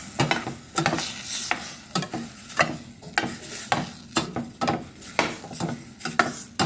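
Chicken pieces and diced onion, celery and carrot sizzling in a pan while being stirred, with repeated scrapes and knocks of the utensil against the pan a few times a second.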